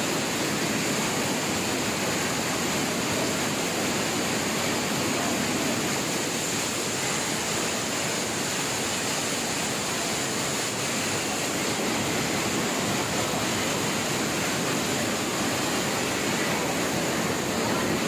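Small waterfall and mountain stream rushing steadily over rocks.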